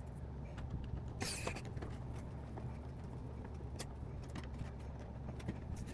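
Faint clicks and handling sounds as screws and LED boards are set onto a 3D-printed plastic base, with a brief scrape about a second and a half in, over a low steady hum.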